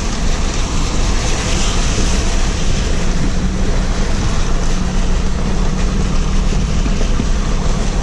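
Steady drive noise inside a four-wheel-drive Jeep crawling along a rough dirt and gravel trail: a constant low engine hum under loud tyre and body rumble.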